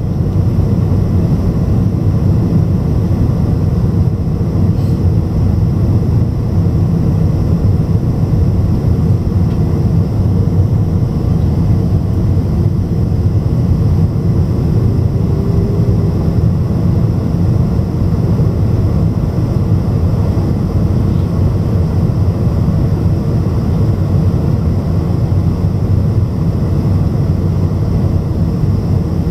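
Steady low rumble of a Boeing 747's engines and rushing airflow heard inside the passenger cabin during the descent to land.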